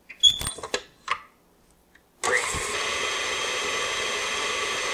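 A few sharp clicks and clanks, then about two seconds in a KitchenAid Heavy Duty stand mixer switches on at high speed and runs steadily, its paddle beating butter, peanut butter and sugar together.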